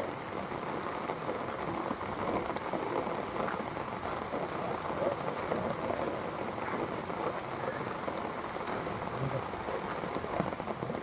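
Heavy rain falling steadily on wet paving stones and trees, drops splashing into puddles.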